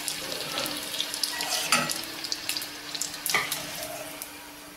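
Golgappa puris deep-frying in hot oil in a steel kadai: a steady sizzle that slowly dies down as they are lifted out, with a couple of sharp metallic clinks of the slotted spoon against the pan.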